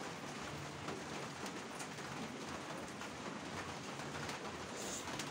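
Steady rain falling, a dense even patter of many small drops.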